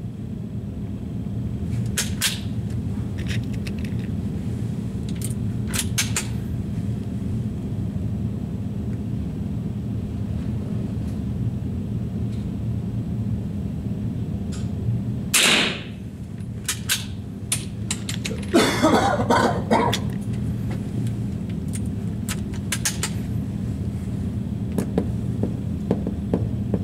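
Rifle shot a little past halfway, over a steady low hum; about three seconds later comes a second or so of rattling handling noise, with scattered small clicks.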